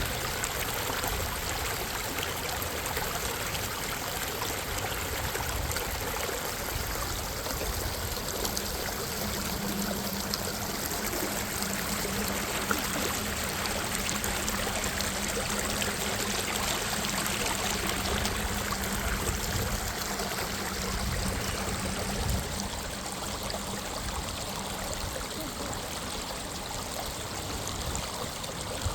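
Minnehaha Creek's water running steadily.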